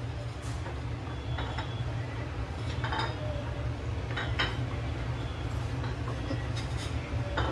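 A spoon stirring milk and ground rice in a metal pot, clinking against the side of the pot at irregular moments, over a steady low hum.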